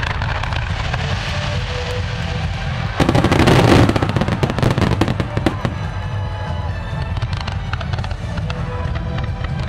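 Aerial fireworks display: a loud shell burst about three seconds in, followed by a spell of sharp crackling and scattered pops, over steady background music.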